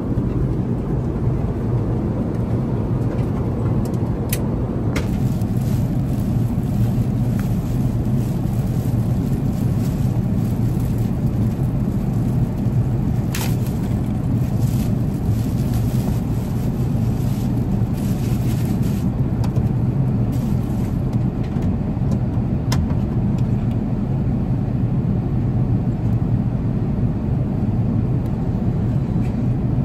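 Steady low rumble of an Airbus A380 passenger cabin. Over it, clear plastic wrapping crinkles and rustles as a blanket is pulled out of it, densest from about 13 to 19 seconds in, with a few sharp clicks.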